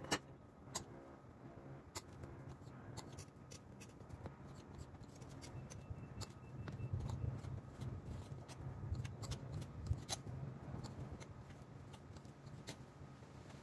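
Kitchen knife slicing peeled bananas on a cutting board: irregular sharp taps as the blade meets the board, over a faint low hum.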